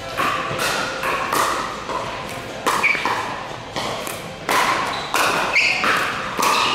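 Pickleball rally: paddles hitting a plastic pickleball back and forth in a quick run of sharp pops, roughly one every half second, each ringing briefly in a large indoor hall.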